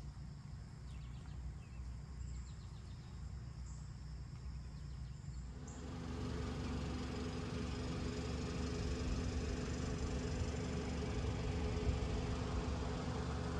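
Outdoor ambience of low wind rumble with faint high, steady insect tones. About six seconds in, the sound changes to a louder steady hiss with a low machine hum.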